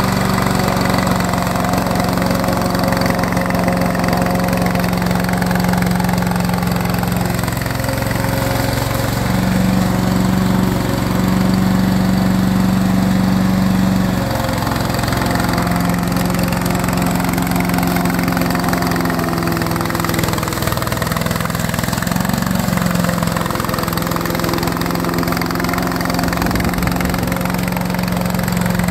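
Petrol engine of a remote-controlled slope mower running steadily as it cuts long grass: a continuous drone whose pitch dips briefly now and then as the engine takes load.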